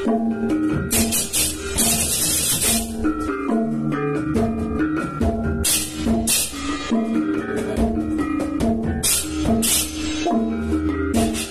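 A Balinese baleganjur gamelan playing: bronze gongs ring out steady pitched notes over kendang drumming. Pairs of ceng-ceng cymbals clash in several loud bursts.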